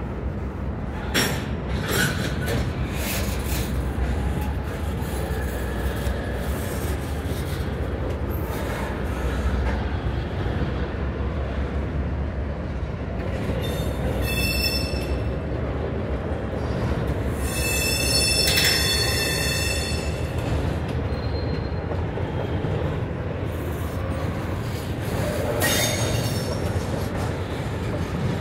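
Double-stack intermodal freight train rolling past: steady rumble of wheels on rail with a few sharp knocks near the start and near the end, and high-pitched wheel squeal, briefly about halfway through and longer a few seconds later.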